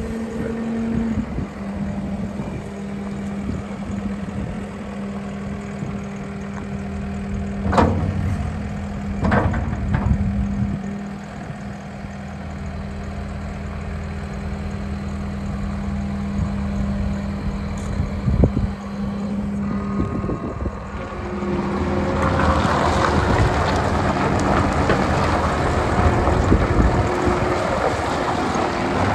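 John Deere 325G track skid steer's four-cylinder turbo diesel running steadily, with a few sharp knocks about a third of the way in. Over the last third the machine grows louder and noisier.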